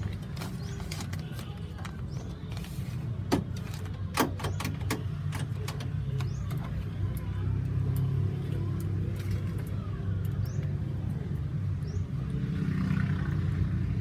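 Sharp clicks and taps of metal door-lock rods and their plastic clips being handled inside an open car door shell, the loudest about three and four seconds in, over a steady low hum.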